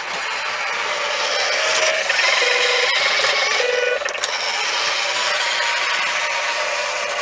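RC Unimog model truck's motor and gears whining as it drives over snow with its plough, the whine shifting in pitch with the throttle. It gets louder as the truck passes close by, about two to four seconds in, then fades a little as it drives away.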